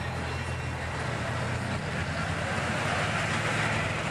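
Road traffic pulling across a railroad grade crossing: car engines running with a steady low hum, and tyre and engine noise growing in the second half as vehicles drive over the tracks.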